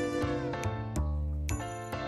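Background music with a steady beat and held notes over a bass line.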